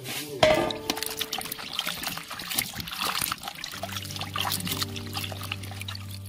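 Water splashing and trickling as chopped eggplant and other vegetable pieces are stirred and scooped by hand in a basin of water, with soft background music that gains a steady low note in the second half.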